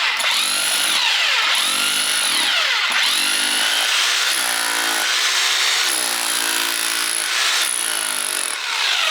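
Electric Kango breaker hammer chiselling out soil. Its motor pitch rises and falls in repeated surges about a second apart as the tool bites and eases off.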